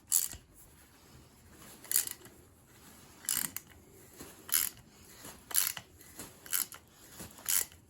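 A 3/8-inch ratchet turning a Helicoil thread-repair tap dry in a spark plug hole: short clicks and squeaks of the ratchet and the cutting tap, about one a second.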